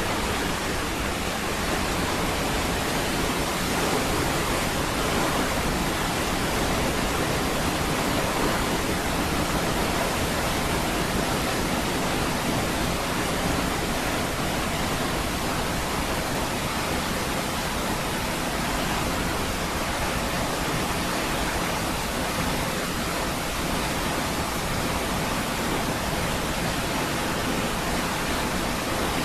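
A large waterfall's steady, unbroken roar of falling water, an even rush spread from deep rumble to high hiss with no changes.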